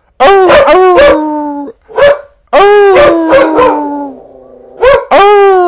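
Coyotes yipping and howling: short sharp yips mixed with howls that fall in pitch, coming in loud bursts with a brief break about two seconds in and a quieter stretch around four seconds in.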